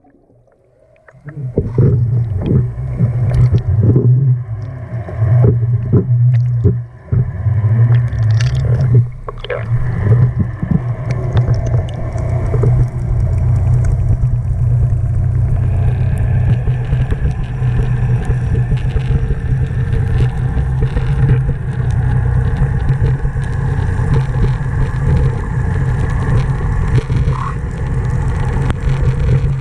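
Sound picked up underwater through a camera housing as it sinks: knocks and scrapes against the housing over the first ten seconds, then a steady low hum with a wash of water noise.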